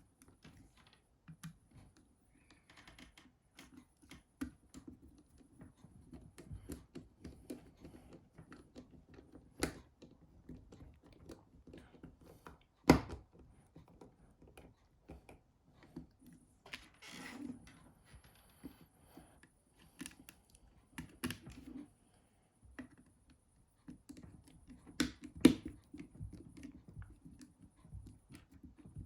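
Small, irregular clicks and taps of a mobile phone's plastic and metal parts and a small screwdriver being handled on a work surface during hand assembly of a Nokia 6600, with two sharper clicks and a brief scrape.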